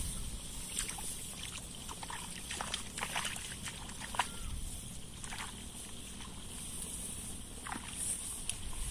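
Faint outdoor ambience in a rice paddy: light sloshing and rustling of someone wading through the wet field, with scattered short chirps over a steady high hiss.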